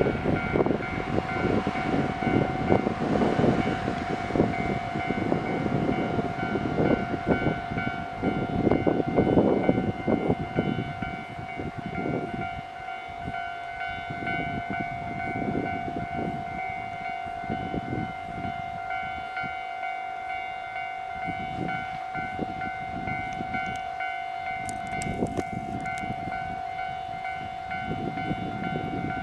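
Japanese level-crossing warning bell ringing without pause in its rapid repeating 'kan-kan' while a train rumbles and clatters past. The train noise is loudest in the first half, dies down, and builds again near the end as more train noise approaches.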